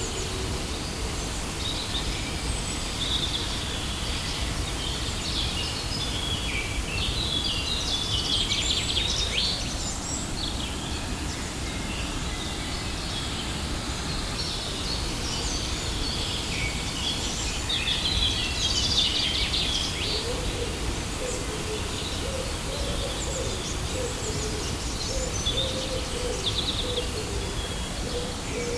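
Steady rush of a waterfall with songbirds chirping over it in several bursts, and a lower wavering bird call joining in during the second half.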